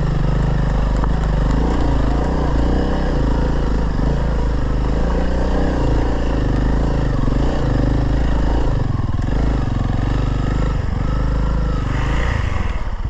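Honda CRF300L's single-cylinder engine pulling uphill under load, its revs rising and falling continuously.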